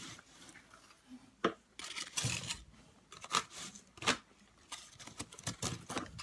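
Eating close to the microphone: chewing and mouth sounds, with scattered sharp clicks and bits of scraping and rustling from the food and its container.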